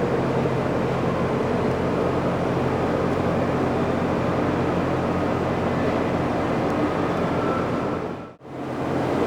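Machinery running steadily with a low hum, dropping out abruptly for a moment near the end and then resuming.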